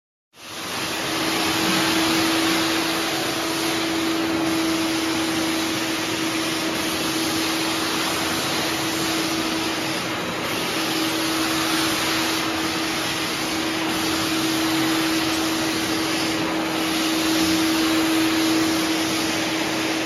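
Wet vacuum with a squeegee floor tool running steadily as it sucks dirty cleaning solution off wet floor tiles. It starts abruptly about half a second in, a steady motor hum under the rush of air.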